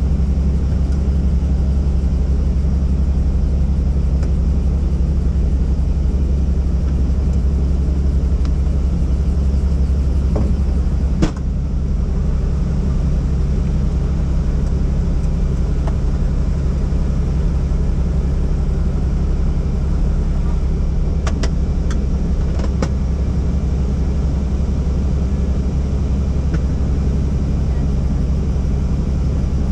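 Helicopter's engine and rotor running steadily, a loud, even low drone. A single sharp click comes about eleven seconds in, with a brief dip in the sound.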